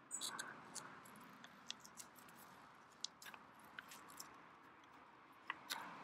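Foil lid of an Apiguard gel sachet being peeled open by gloved hands: faint, scattered crinkles and small clicks of the foil.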